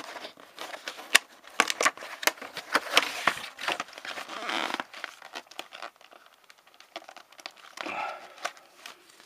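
Clear plastic packaging crinkling and crackling as it is handled and pulled from a cardboard box. There is a dense run of sharp crackles that thins out about halfway through.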